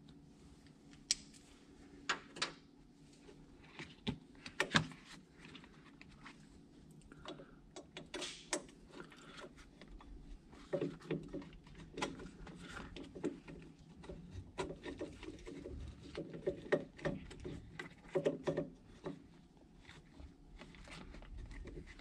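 Scattered light clicks, taps and rubbing from hands working a rubber joystick boot and plastic housing into place, busier in the second half.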